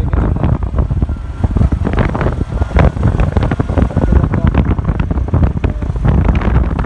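Motorcycle riding along a road: engine and tyre noise under loud, gusting wind buffeting the microphone.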